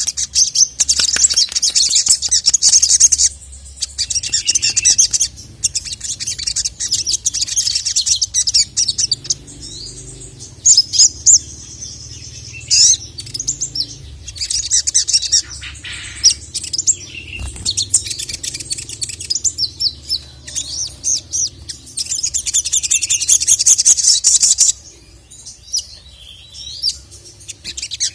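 Sogok ontong (sogon) sunbird singing a fast, high-pitched twittering song in long unbroken runs, with a few short pauses. It is in full, agitated song of the kind used to provoke and call male sogon. A faint steady low hum runs underneath.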